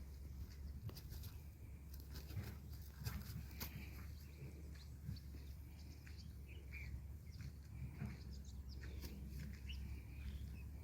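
Faint outdoor ambience: scattered short bird chirps and small clicks over a steady low hum.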